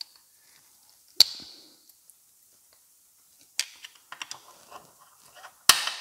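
A thin metal screwdriver prying and tapping at the plastic housing and copper commutator of a BMW electric wastegate actuator's motor while working the rotor loose: a sharp click about a second in, scattered small clicks and scrapes later, and another sharp click near the end.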